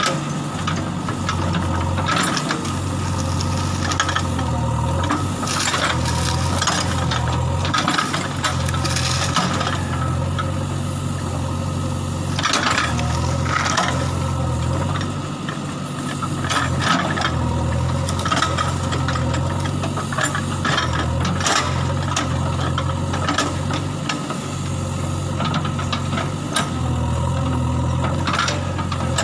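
JCB backhoe loader's diesel engine running and working, its note rising and easing every second or two as it takes load, with irregular rattles and knocks from the machine at work.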